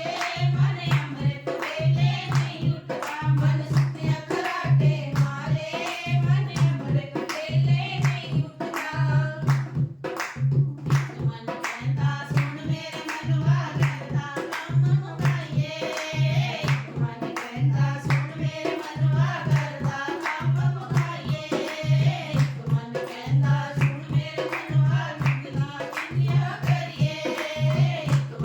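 A Punjabi devotional bhajan sung by a group of women, over a steady low beat about once a second, with sharp claps throughout.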